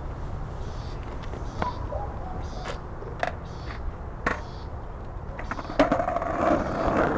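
Skateboard set down on concrete with a sharp clack about six seconds in, then its wheels rolling over the pavement with a rough, steady rumble. Before that, a few scattered light clicks over a low outdoor rumble.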